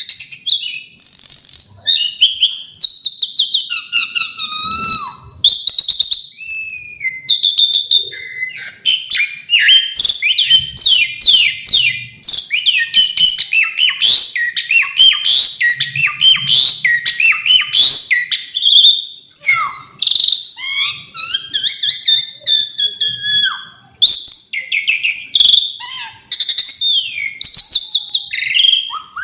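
Asian pied starling (jalak suren) singing a long, varied song of whistled notes, rapid chattering trills and gliding calls, full of mimicked phrases.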